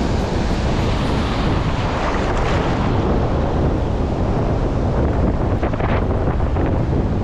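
Steady wind buffeting the microphone, with surf washing on the shore behind it.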